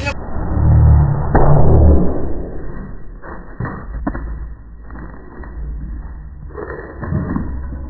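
Muffled, deep thud as a smartphone is slapped out of someone's hands and drops into shallow drain water, with a sharp knock about a second and a half in and a few softer knocks a couple of seconds later.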